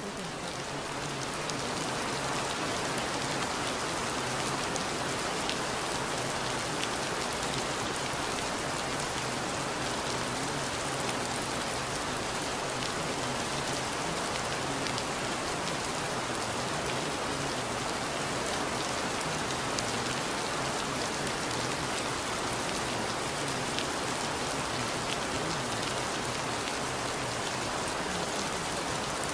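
Recorded rain falling steadily on a street, a dense, even patter with scattered drop clicks, fading in over the first couple of seconds.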